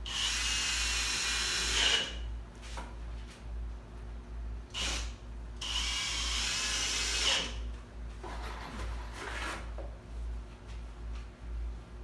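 Power drill driving screws into the plenum box panels: two runs of about two seconds each, its motor pitch steady and dropping away at each release, with shorter bursts in between and after.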